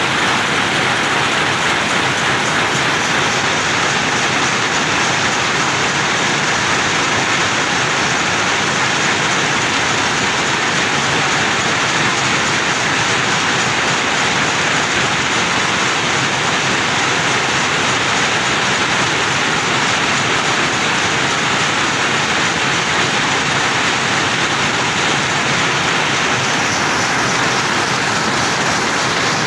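Steady, loud mechanical din of power looms running in a weaving shed, a dense, even clatter with no single beat standing out.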